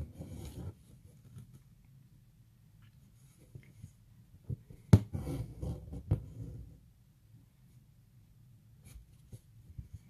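Embroidery floss drawn through hooped fabric while working chain stitch: soft rustling drags at the start and again about five to seven seconds in, each opened by a sharp tap of handling, quiet in between.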